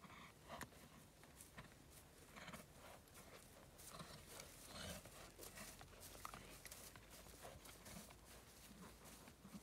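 Faint, soft hoofbeats of a cob trotting on grass, about two strokes a second.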